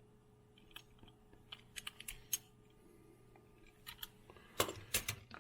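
Scattered small clicks and taps of diecast toy cars being handled and set down, with a cluster of louder ones near the end.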